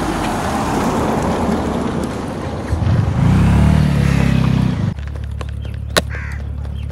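Road traffic with car engines running, with a louder low engine drone for about two seconds in the middle.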